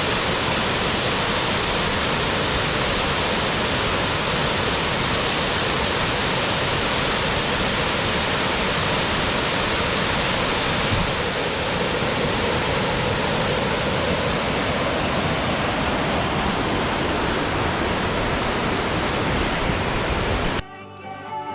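Waterfall rushing steadily, a dense even roar of falling water. It cuts off abruptly about a second before the end, giving way to soft music.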